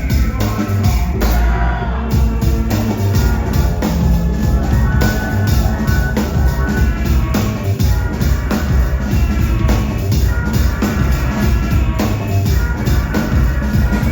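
Live rock band playing an instrumental stretch without vocals: a drum kit beats steadily over bass and other instruments.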